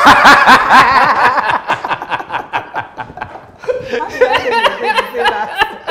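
Laughter, loudest and most sustained in the first two seconds, then trailing off into softer, broken chuckles.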